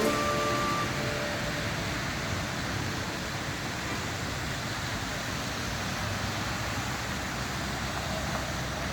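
Steady road traffic noise. The last notes of background music trail off in the first second.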